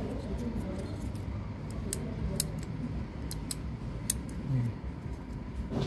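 Sharp, light clicks, about half a dozen, mostly between two and four seconds in, from the TV's power push-switch and its small circuit board being handled and worked. A steady low rumble runs underneath.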